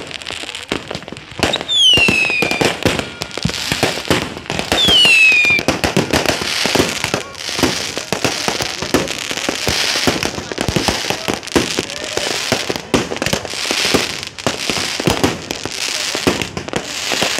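Many fireworks going off at once: a dense, continuous run of bangs, pops and crackles. Two falling whistles sound about two seconds and about five seconds in.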